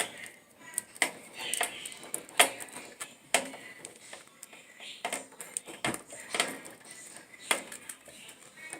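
Irregular sharp clicks, taps and light knocks of plastic and metal parts being handled and pried apart while a dryer is being opened up for repair.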